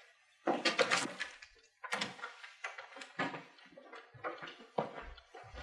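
A door being opened and footsteps of several people walking across a hard floor: a string of uneven knocks and scuffs, the loudest about half a second in.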